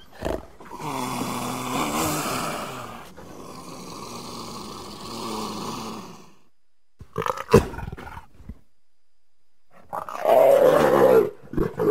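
Leopards growling and snarling. A long growl is followed by a pause, then short snarls and a louder growl near the end.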